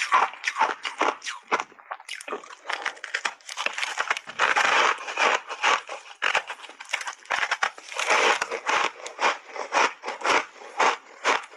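Close-miked crunching of powder-coated block ice being bitten and chewed, a rapid run of sharp crunches several times a second. Longer, denser bursts of crunching come near the middle and about two-thirds in.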